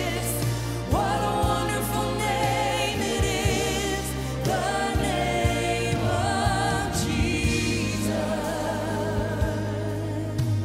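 Live gospel worship music: a woman sings the lead with vibrato over backing singers and a full band, with steady drum hits and sustained bass underneath.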